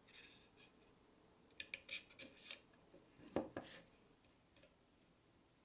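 Small metal parts clinking and a wooden piece being handled as a steel bracket with a bearing is fitted into the slot of a wooden saw arm. There is a quick run of light metallic clicks about two seconds in, then a louder knock a little after three seconds, followed by a few more clicks.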